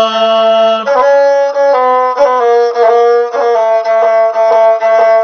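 Gusle, the single-string bowed Balkan fiddle, playing a short instrumental passage, a run of notes changing about every half second.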